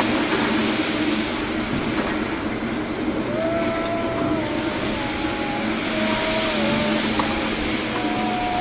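WAP4 electric locomotive and its express coaches approaching, a steady rumble and hiss of the moving train. Faint whistle-like tones come and go from about three seconds in.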